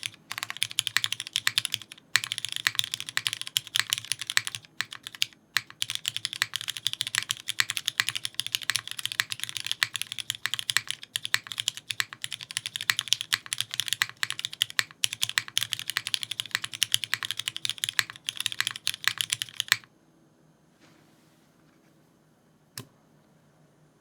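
Fast continuous typing on a Kohaku mechanical keyboard with lubed and filmed MX2A Black linear switches on an aluminium plate, GMK keycaps and no sound dampening, with a couple of brief pauses. The typing stops about twenty seconds in, and one lone key click follows a few seconds later.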